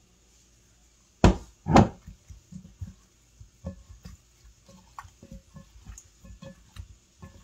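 Two loud thumps a little over a second in, then soft, irregular knocks and squelches as a gloved hand tosses seasoned raw chicken wings around in a glass bowl.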